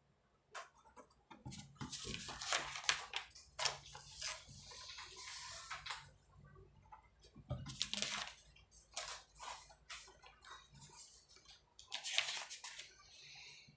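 Sheets of paper rustling as pages are handled and turned, with a pen scratching out signatures. The rustling comes in bursts, the longest a few seconds after the start and others near the middle and near the end.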